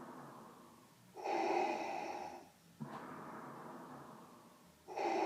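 Darth Vader's respirator breathing sound effect: slow, heavy mechanical breaths, a louder one about a second in and again near the end, with a quieter breath between.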